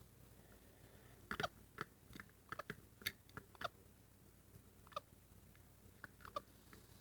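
Baby capuchin monkey hiccupping: brief hics that fall slightly in pitch, roughly every one and a half seconds, among small clicks and mouthing sounds.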